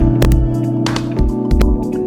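Relaxing instrumental background music: held chords over a soft, steady low beat about twice a second, with light percussive clicks.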